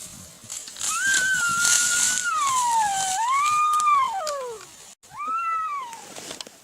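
Elk bugle: one long high whistle of about four seconds that holds, dips, climbs again and falls away low, airy at the start, then a shorter whistle that rises and falls.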